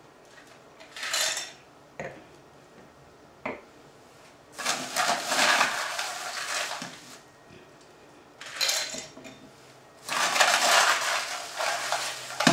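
Ice cubes being grabbed by hand from a plastic bag and dropped into glasses: the bag rustles and the ice clatters against the glass in four bursts, with a couple of single clinks between.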